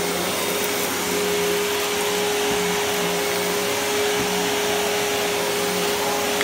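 Riccar bagged upright vacuum cleaner running steadily with a constant motor tone as it is pushed over carpet.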